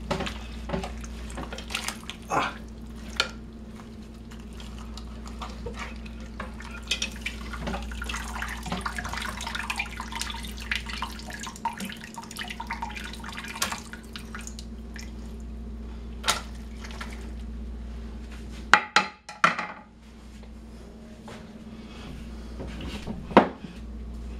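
Plastic serving utensils scraping and knocking against a ceramic slow cooker pot as a whole cooked chicken is lifted out, with broth pouring and dripping back into the pot. A few louder knocks come near the end.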